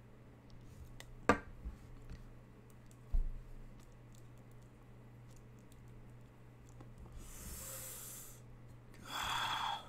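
Sparse clicks and handling knocks at a computer desk over a steady electrical hum: one sharp click about a second in, a dull thump a couple of seconds later, and a short rush of hiss-like noise near the end.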